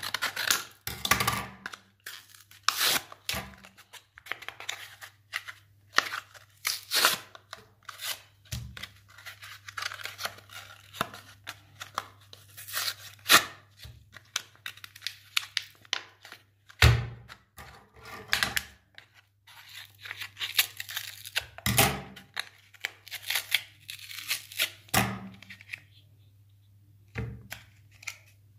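Thin cardboard toy packaging being torn apart by hand: a long run of short rips, rustles and taps, over a steady low hum. The tearing thins out over the last couple of seconds.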